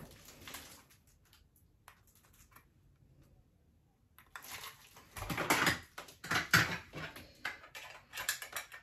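Clear plastic eyelash cases being handled: light clicks, taps and rustling. It is nearly quiet for a few seconds, then the handling noise gets busier from about four seconds in.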